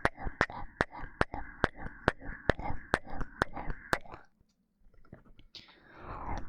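Rapid kisses into a binaural microphone: quick wet lip smacks at about two and a half a second. They stop about four seconds in, and after a brief hush a soft rustling swells near the end.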